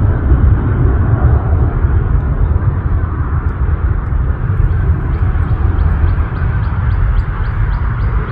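Four-engine Airbus A340 jetliner climbing away after takeoff: a deep, continuous jet-engine rumble that slowly fades.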